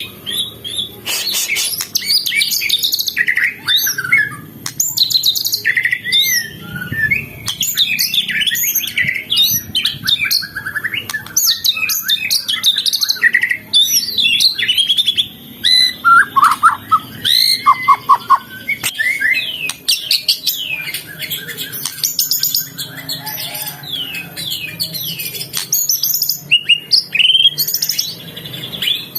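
White-rumped shama (murai batu) singing a long, varied song of quick rising and falling whistles and chirps with short breaks.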